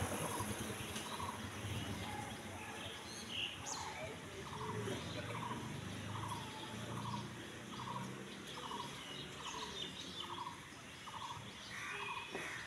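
A bird calling over and over in a steady series of short notes, about two a second.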